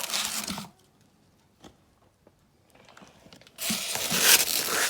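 Packaging rustling and crinkling as the exhaust is drawn out of its box: briefly at the start, then quiet with a few small knocks, then louder rustling again from about three and a half seconds in.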